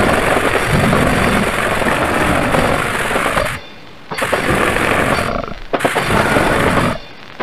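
Goregrind/gorenoise recording: a harsh, distorted wall of noise that breaks off for about half a second some three and a half seconds in, then starts again and breaks off once more near the end, as one very short track gives way to the next.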